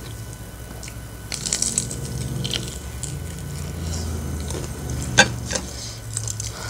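Crunchy bites into the crisp coating of a fried chicken breast, then chewing, with a single sharp click about five seconds in.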